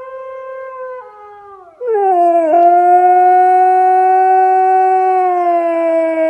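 Siberian husky howling: a held note that drops lower and quieter about a second in, then a louder, long howl starting about two seconds in that slides down in pitch and is held steady.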